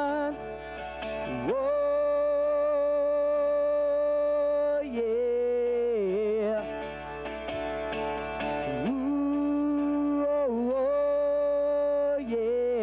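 A man singing long, wordless held notes, several seconds each, with slides between pitches, over a twelve-string acoustic guitar.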